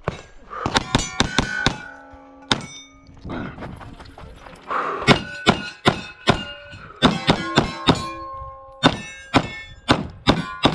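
Several quick strings of 9mm pistol shots from a Glock 45, each hit answered by steel target plates ringing at different pitches.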